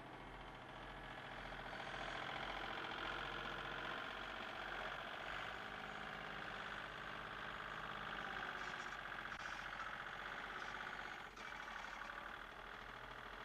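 Compact tractor engine running steadily while working a front-end loader, growing louder about two seconds in and holding there until near the end, with a brief knock about eleven seconds in.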